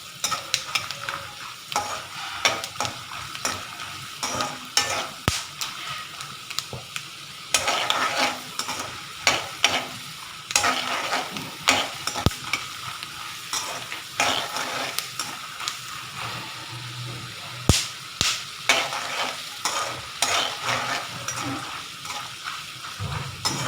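Peanuts frying in a little oil in a pan, stirred with a spatula: a steady sizzle with many short scraping and clicking strokes of the spatula against the pan. They are being roasted on a low flame until brown.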